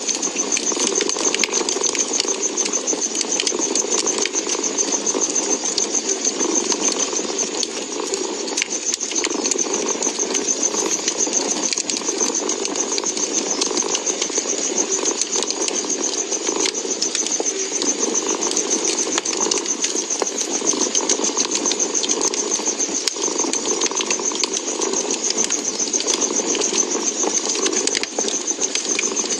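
A cat purring steadily, mixed with the small crackles and pops of a wood fire.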